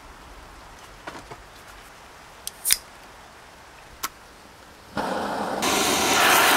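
Sausages hitting a hot frying pan on a gas-canister camping stove and sizzling, a sudden loud hiss that starts about five seconds in and gets louder a moment later. A few sharp clicks come before it.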